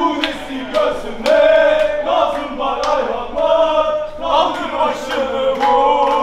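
Concert crowd singing along in chorus with a live band's music, with sharp beats or claps cutting through.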